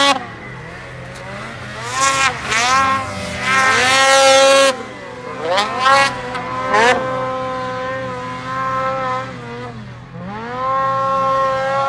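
Two-stroke Ski-Doo Summit 850 snowmobile engines revving hard on a hill climb. The pitch repeatedly rises and falls as the throttle is worked, with the loudest surges near the start and about four seconds in.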